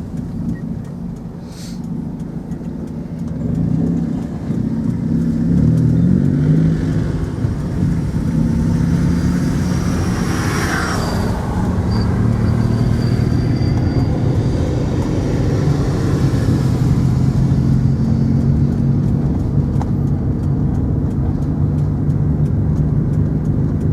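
Motor vehicle engine running steadily, its pitch shifting a few seconds in and then holding. A rushing sound swells and fades about ten seconds in.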